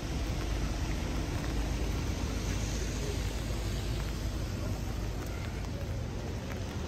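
Steady rain and city street noise: an even hiss with a low rumble underneath.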